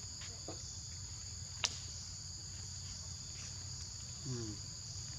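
Steady, high-pitched chorus of insects buzzing without a break, with one sharp click about a second and a half in and a brief low falling voice-like sound near the end.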